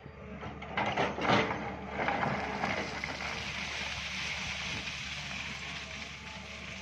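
SANY long-reach hydraulic excavator's diesel engine running steadily under load as the bucket digs into rock and soil. A burst of knocks and scraping from the bucket comes about a second in.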